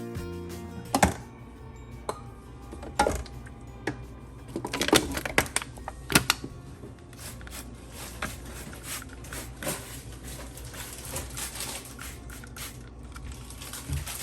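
Household items knocking and clattering as a refrigerator is emptied and wiped out: irregular clicks and knocks, with a few louder ones about a second in and around five and six seconds in, under soft background music.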